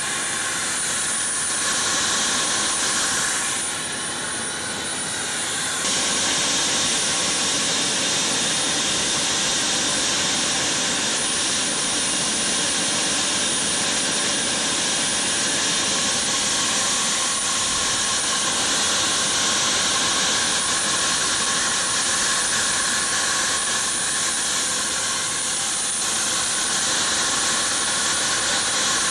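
Turbine helicopter running on the ground, a steady rushing noise with a thin high whine, unchanging throughout.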